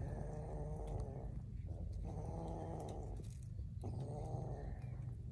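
Kitten growling with raw fish held in its mouth, a guarding growl over its food. Three drawn-out growls of about a second each, with short breaks between them, over a steady low rumble.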